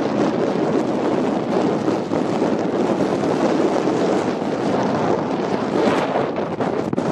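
Steady rushing wind noise on the microphone of a camera fixed to the outside of a moving car, with the car's tyre and engine noise mixed in underneath.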